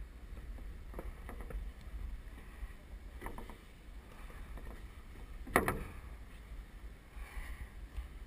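Scattered sharp pops of paintball fire: one about a second in, a quick run of three about three seconds in, and the loudest about five and a half seconds in, over a steady low rumble.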